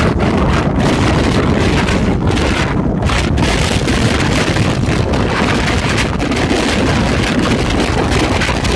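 Strong gusty wind buffeting the microphone: a loud, steady low rumble that fluctuates without a break.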